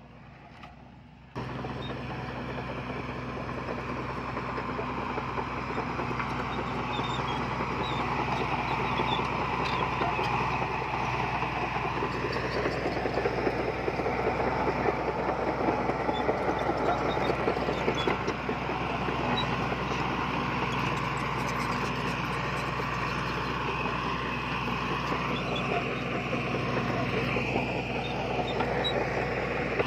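Heavy diesel earthmoving machinery running steadily, its engine a low steady drone under a dense mechanical noise, starting abruptly a little over a second in.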